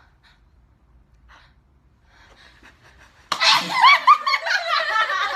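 A person sneezing suddenly about three seconds in, followed by laughter.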